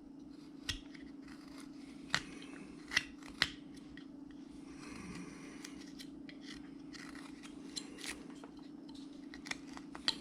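Carving knife blade cutting into a wooden carving blank: a scatter of faint crisp snicks as slices come off, with a few brief scraping strokes between them. A steady low hum runs underneath.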